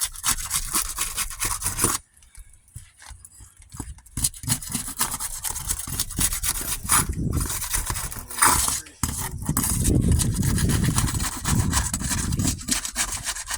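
Asphalt roof shingles being pried and scraped loose from the sealant strip beneath them, rough scraping and tearing strokes with a short pause about two seconds in and a louder stretch near the end.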